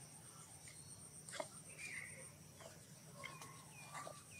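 Faint outdoor ambience of small bird chirps, several short calls falling in pitch in the second half. Under them run a steady high whine that stops about two seconds in and a few sharp clicks.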